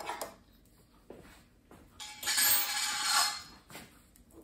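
Small metal tin of furniture wax being handled and opened, with a sharp click and a few light metallic clicks from the lid and tin. About two seconds in, a cloth rag rubs for over a second, the loudest sound.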